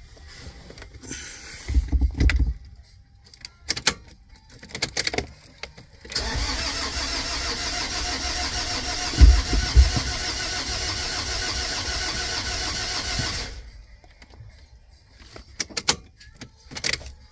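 Nissan Pathfinder's starter motor cranking the engine for about seven seconds without it firing: a no-start. The ECM has been in immobilizer lock mode (code P1610). A few short knocks come before and after.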